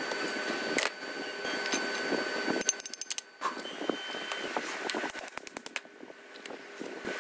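Steel gear and roller-bearing parts of a large planetary gear hub clinking and rattling as they are handled, with quick runs of small metallic clicks about two and a half seconds in and again near five seconds. A faint steady hum runs underneath.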